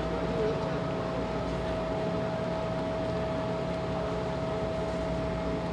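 Steady electrical hum of a KTX-Sancheon high-speed electric train at the station: a constant whine over an even rushing noise, holding level throughout.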